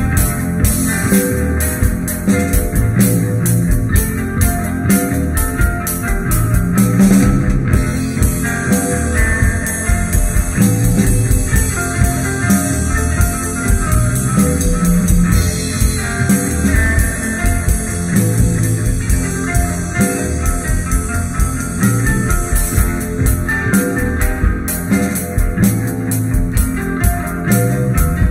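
Instrumental rock music from guitar, bass guitar and drum kit. The cymbals thin out for a stretch in the middle and come back in near the end.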